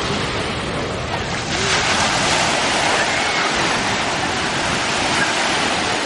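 Small sea waves breaking in the shallows and washing up the sand, a steady rush of surf that grows a little louder about one and a half seconds in.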